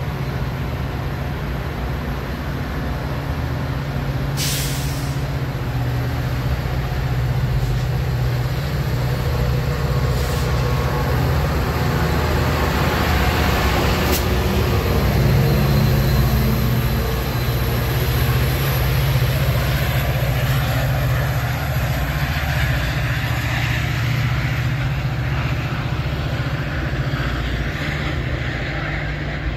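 EMD F40PH-3 diesel locomotive pushing a bilevel commuter train away from the platform, its engine running steadily and getting louder as the locomotive passes about midway. A short burst of air hiss comes about four seconds in.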